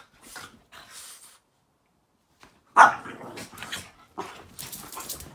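Boston Terrier and French Bulldog in rough play, barking: one sharp, loud bark nearly three seconds in, followed by several shorter barks and play noises, after a brief quiet gap.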